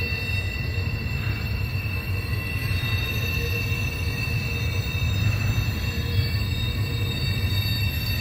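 Double-stack intermodal freight train rolling steadily past: a continuous low rumble of the cars, with a thin, steady high squeal of wheel flanges against the curved rail.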